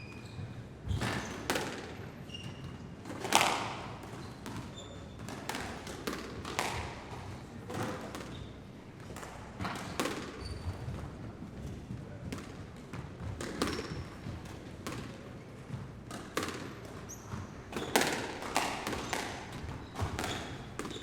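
Sports hall ambience: irregular thuds of balls bouncing and striking in a large echoing hall, the loudest about three and a half seconds in, with short high squeaks scattered between them and faint voices in the background.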